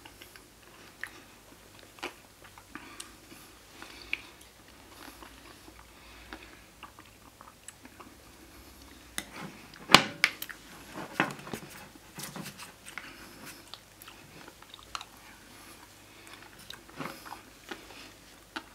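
A plastic spoon digging into frozen rolled ice cream with whipped cream in a ceramic cup: soft crunching and scattered clicks, the loudest a sharp click about ten seconds in, followed by a short run of crackles.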